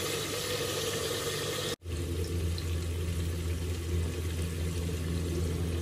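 Chicken and onion-tomato masala sizzling as they fry in a clay handi, a steady hiss. About two seconds in the sound cuts off for an instant and comes back with a steady low hum under the sizzle.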